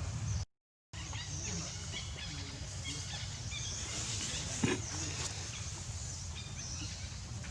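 Monkeys giving many short, high squeaks and chirps over a steady low background rumble. A sharp click comes about four and a half seconds in, and the sound cuts out completely for half a second near the start.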